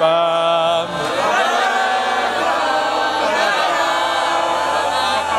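A crowd of voices singing or chanting together without instruments. It opens on one held note, and about a second in many voices join in and overlap.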